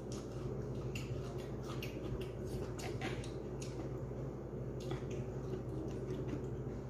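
A person chewing food with wet mouth clicks and smacks, scattered irregularly over a steady low hum.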